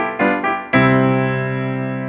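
Piano or electric piano playing slow sustained chords: two chords struck near the start and about two-thirds of a second in, each left to ring and fade.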